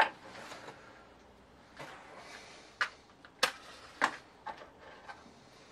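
A wooden match being struck on its box and flaring alight, heard as several short, sharp scratches and clicks a second or less apart, with the box and match being handled.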